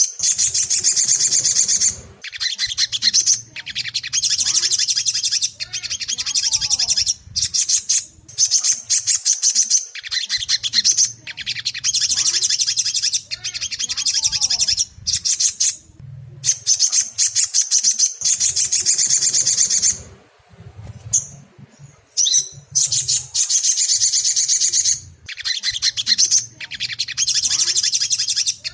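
Little spiderhunter (sogon) singing: repeated rapid, high-pitched trills, each one to several seconds long, separated by brief breaks.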